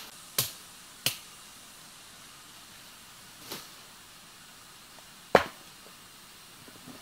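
Four short, sharp cracks at irregular intervals over a faint steady hiss, the loudest a little past halfway.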